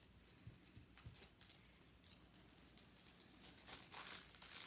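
Near silence with faint, scattered clicks and rustles of a small cardboard mystery box being handled, a few louder near the end.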